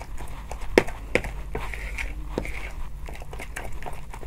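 A metal spoon stirring and mashing a thick, wet bait paste in a plastic bowl: soft squelching with irregular clicks of the spoon against the bowl.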